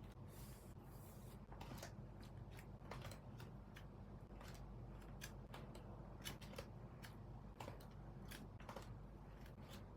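Faint, irregular clicks and short rustles of collectible cards and plastic binder sleeves being handled while a card binder is sorted, over a steady low hum.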